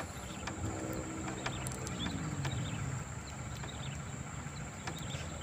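Motorboat engine running steadily, its pitch sagging slightly early on, with a few light clicks.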